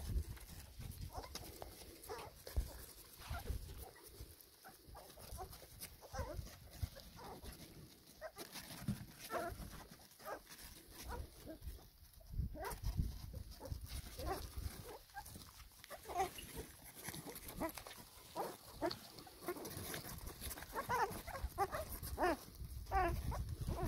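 Litter of four-week-old black Labrador puppies squeaking and whimpering while nursing, many short high calls that grow busier near the end.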